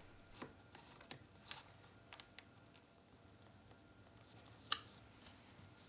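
Faint small clicks and taps of a bicycle saddle and a hand tool being worked at the seat post clamp, scattered and irregular, with one sharper click late on.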